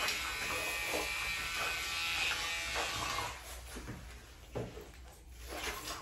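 Small handheld electric dog-grooming tool running with a steady high buzz, switched off about three seconds in, followed by a few light knocks of handling on the table.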